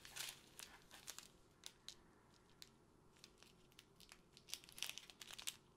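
Faint crinkling of a small clear plastic bag of square diamond-painting drills being handled and turned, with the drills clicking and shifting inside in scattered bursts.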